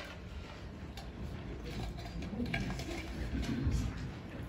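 Faint handling noise of brass offering plates being separated and passed out: light scattered clicks and soft shuffling.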